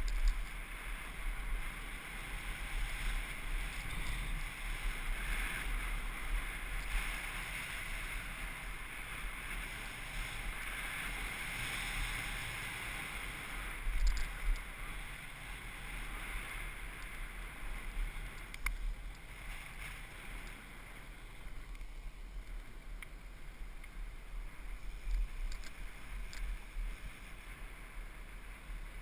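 Wind buffeting a helmet-mounted camera's microphone with a steady rush of bicycle tyres rolling on pavement at speed. A few sharp knocks from bumps come partway through.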